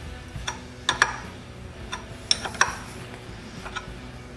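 Light, irregular metallic clicks and clinks of a box-end wrench on a nut welded onto a rusted broken bolt, as the bolt is worked back and forth to free it from aluminium. The loudest click comes about a second in.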